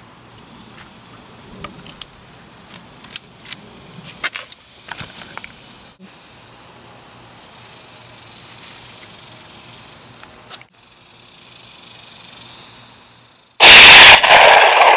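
Low outdoor background with scattered small clicks, then near the end a sudden, very loud pistol-shot sound effect that lasts about two seconds and cuts off abruptly.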